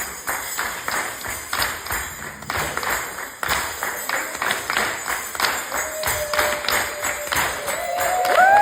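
A steady rhythm of sharp claps or percussion strikes, about three to four a second. Sustained high tones join from about six seconds in and grow louder near the end.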